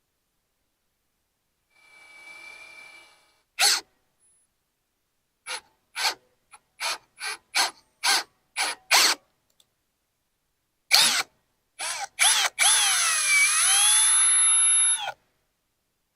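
Power drill triggered in a string of short spurts, then run steadily for about two and a half seconds, its pitch sagging briefly as the bit works through a hole being drilled or tapped for a drain cock.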